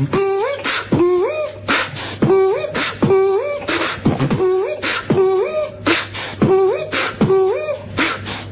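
A man beatboxing: a steady looped rhythm of mouth-made drum hits and hissing cymbal sounds, with a short voiced tone that slides up in pitch and repeats a bit more than once a second.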